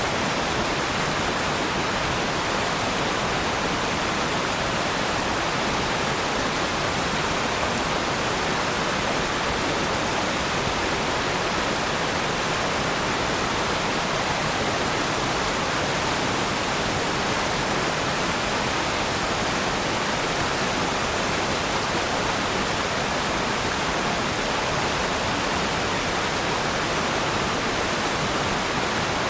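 Waterfall: falling water rushing with a steady, even roar.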